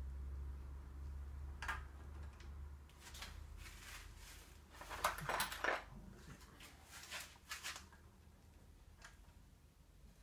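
Metal parts of a chrome bicycle headset and springer fork clinking and knocking against each other as they are fitted into the frame's head tube: a scattering of short metallic clinks, loudest about halfway through. A low hum fades away over the first few seconds.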